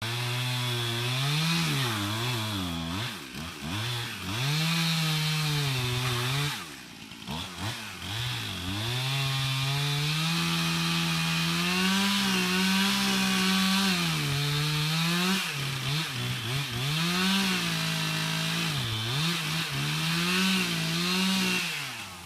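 Gas chainsaw cutting into a large pine tree during felling. The engine pitch rises and sags over and over as the bar loads in the cut, eases off briefly about seven seconds in, and the saw cuts out near the end.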